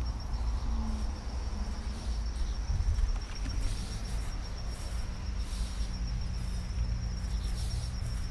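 An insect trilling steadily at a high pitch with a fast, even pulse, over a low rumble and a few soft rustles.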